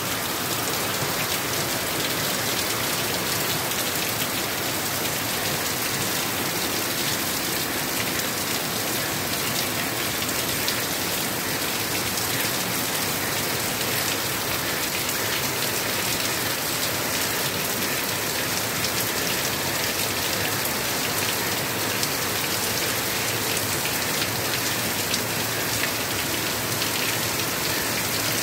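Heavy rain falling steadily onto waterlogged ground and standing water: a dense, even hiss of countless drops that does not let up.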